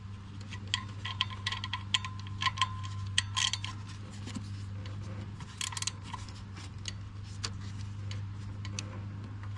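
Quarter-inch drive ratchet clicking in quick irregular runs as it turns a 10mm socket, tightening an EGR valve's mounting bolts.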